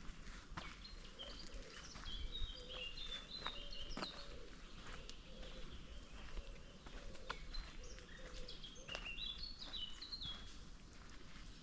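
A songbird sings two short phrases of quick high notes, one starting about a second in and one near the end, over footsteps on a forest trail.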